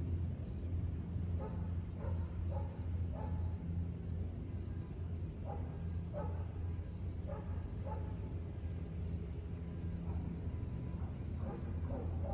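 Short animal calls in small groups of two or three, repeating a few times over a steady low hum that is the loudest sound throughout.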